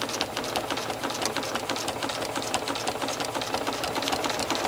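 Janome 6600P sewing machine stitching steadily at speed, its needle making a rapid, even run of clicks as a line of free-motion ruler quilting is sewn.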